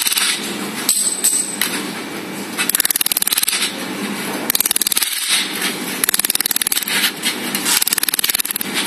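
Laser welding machine firing in short bursts, a rapid buzzing train of ticks repeated several times, each burst under a second long.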